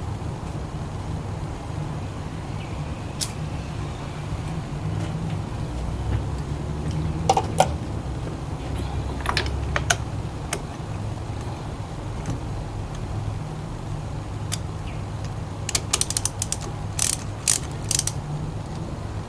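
Sharp metallic clicks of hand tools, in ratchet-like runs, over a steady low hum. The clicks come singly at first and bunch together in a quick run near the end.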